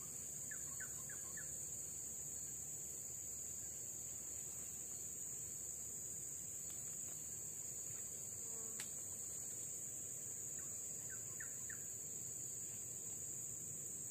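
Forest insects keeping up a steady, high-pitched drone, with two short runs of quick bird chirps, one near the start and one about eleven seconds in. There is a single sharp click about nine seconds in.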